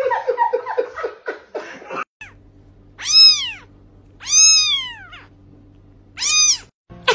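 A cat meowing three times, each a drawn-out call that rises and then falls in pitch, the first the loudest, over a faint steady hum.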